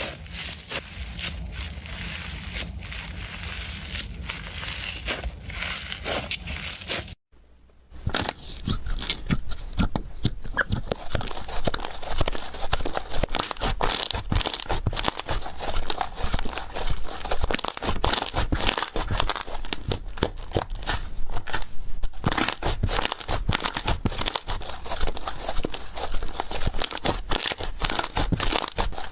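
Hands squishing and poking slime, making dense, irregular crackling and popping. The sound breaks off briefly about seven seconds in, then comes back with sharper, denser pops.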